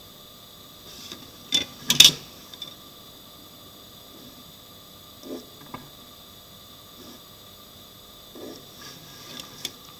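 Drawing instruments handled on a drawing board: scattered knocks and taps, the loudest pair about one and a half to two seconds in and a few lighter ones later, over a steady hiss.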